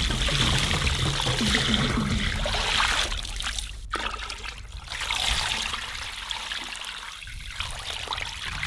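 Water pouring and trickling as a cauldron is filled. It breaks off about four seconds in and carries on fainter.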